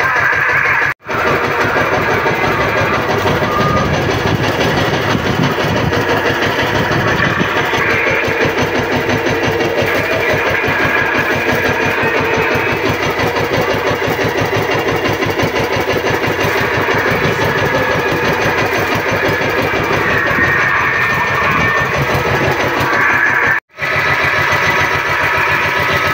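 Outrigger fishing boat's engine running steadily with a fast, even firing beat, broken by two brief silent gaps, one about a second in and one near the end.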